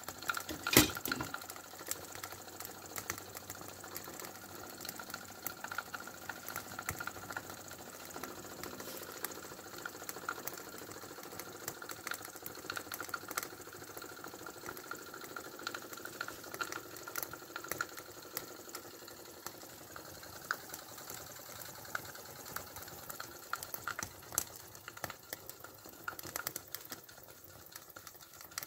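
Boiler of the 08 Romeo hand-built toy steam engine heating up on its first steaming: water bubbling and sputtering with irregular clicks and crackles over a faint steady hiss, and one sharp click about a second in.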